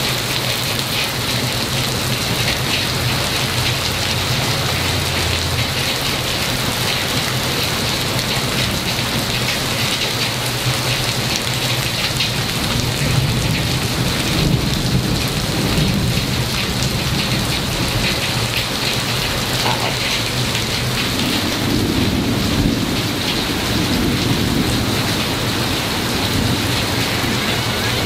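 Heavy rain pouring down steadily, with thunder rumbling low at times, most strongly around the middle and again later on.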